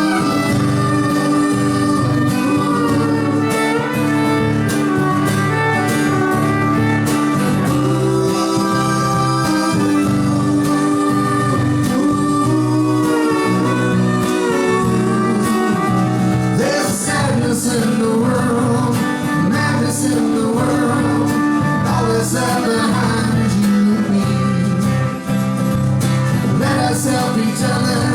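Live country-style acoustic music: guitar accompaniment with a fiddle playing sliding melodic lines.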